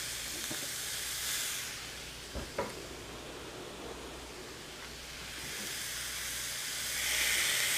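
Raw sausages and burger patties sizzling on a preheated grill plate, a steady hiss that swells near the end. Two light knocks come about two and a half seconds in.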